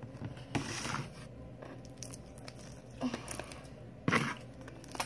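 Sticky homemade slime being squished and pulled in the hands: a few short squelches, the loudest about four seconds in.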